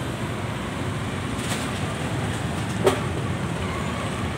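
Steady street traffic noise, with one sharp knock about three seconds in.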